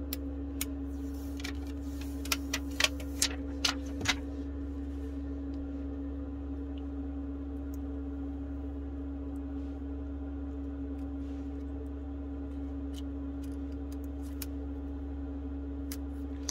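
Sharp clicks and ticks of metal tweezers and fingers peeling protective film tapes off a new iPhone 11 replacement screen. The clicks cluster in the first four seconds, with a few fainter ones later, over a steady low hum.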